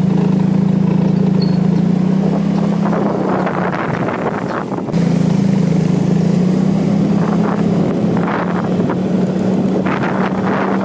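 Small motorcycle engine running steadily while riding, with wind noise on the microphone; the engine note eases briefly about five seconds in, then picks up again.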